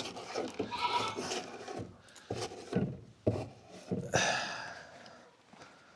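A feed bowl being cleaned out of goat droppings: a few hollow knocks, then a longer scrape a little past the middle.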